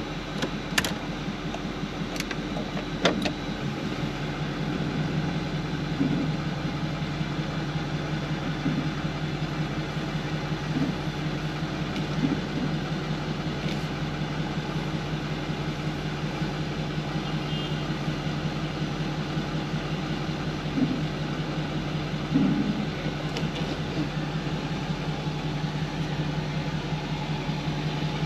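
Car engine idling: a few sharp clicks at first, then about four seconds in a steady low engine hum sets in and holds, with occasional light knocks.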